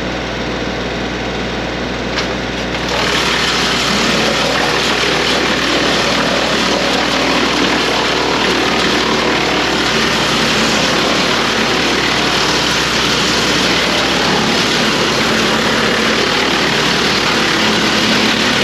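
Woodmaxx WM8H tractor-PTO wood chipper running with the tractor engine, a loud steady mechanical drone that gets louder about three seconds in.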